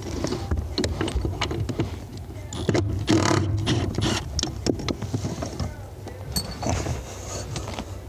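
A cordless impact driver runs for about a second on the accelerator pedal assembly's mounting nuts, about three seconds in, amid clicks and knocks of tools being handled.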